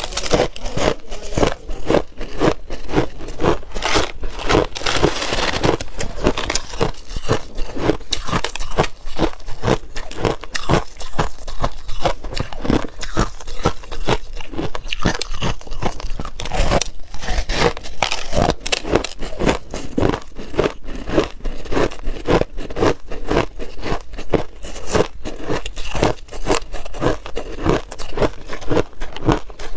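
Crushed ice being bitten and chewed close to the microphone: a continuous run of crisp crunches, several a second.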